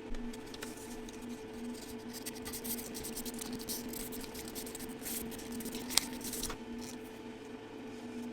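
A steady low electrical hum, with small clicks, scrapes and rustles of objects being handled, and one sharp click about six seconds in.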